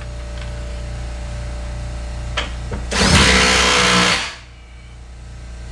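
Cordless drill spinning up for about a second, driving a bolt home, partway through, over a steady low hum.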